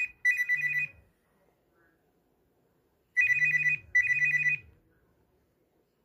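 Nokia 6016i mobile phone's monophonic ringtone for an incoming call: warbling high beeps in short double bursts, one pair ending about a second in and another starting about three seconds in, with a low hum under each burst. The ringing then stops, the call left unanswered as a missed call.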